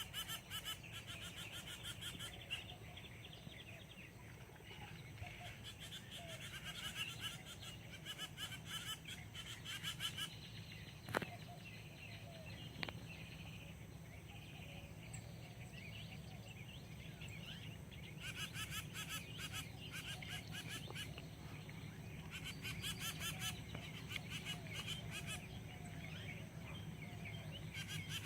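Small birds chirping and twittering in rapid bouts over a steady low hum, with two sharp clicks about eleven and thirteen seconds in.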